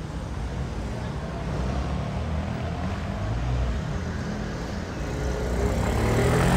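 A motor vehicle engine running in the street and getting louder toward the end as it comes closer, over general street noise.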